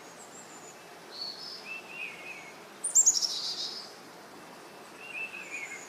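Small birds chirping and calling, with short high notes scattered through and a loud, rapid run of falling notes about three seconds in.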